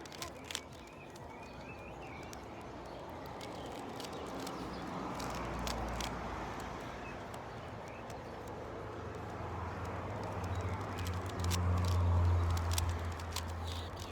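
Plastic Rubik's cube clicking irregularly as its layers are turned, over a low rumble that swells twice and is loudest near the end.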